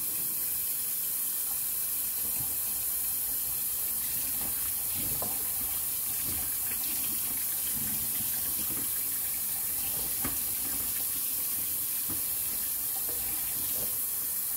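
Kitchen sink tap running steadily, with a few light knocks as a plastic litter box part is wiped with a wet cloth.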